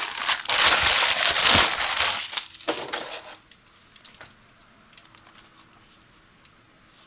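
Packaging crinkling and rustling loudly as a product box is handled and opened, for about three seconds, then a few faint light clicks and taps.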